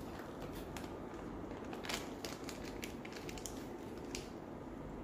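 Faint, irregular small clicks and ticks at a steel cat food bowl as a plastic cat-treat tube is squeezed into the wet food and a kitten eats from it.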